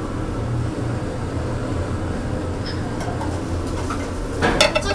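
Steady low hum of room ventilation, then a quick run of tableware clinks near the end.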